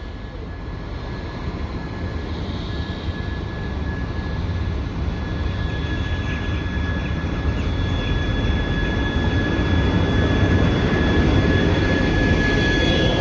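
Passenger train pulling into a station platform: a steady rumble that grows gradually louder as the locomotive and carriages draw alongside, with a thin, steady high whine throughout.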